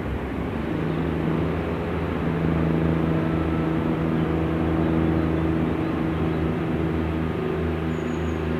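Class 143 Pacer diesel railbus approaching at low speed, its underfloor diesel engines running with a steady drone that grows a little louder towards the middle.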